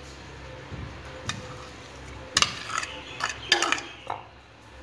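Metal spoon knocking and scraping against a bowl as mashed boiled potato is spooned in and pushed around, a few sharp clinks about two and a half and three and a half seconds in.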